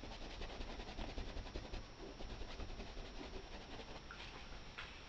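Quiet room tone with faint light rustling, and a couple of soft brief ticks near the end.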